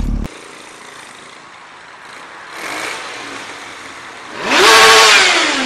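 A motor vehicle passes close by at speed: a loud rush with its engine note rising quickly, then falling away as it goes. This comes after a few seconds of quieter road and engine noise.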